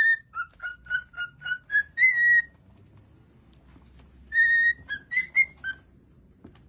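A bird whistling clear notes: a long note, a quick run of about seven short notes, and another long note, then after a pause of nearly two seconds a long note followed by a few short ones.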